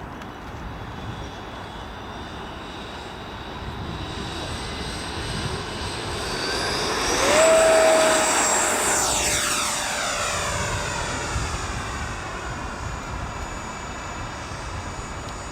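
80 mm electric ducted fan of an FMS F-18 RC jet whining as the model passes close: the whine builds, its pitch jumps up about seven seconds in, it is loudest about halfway through, then it fades as the jet moves away.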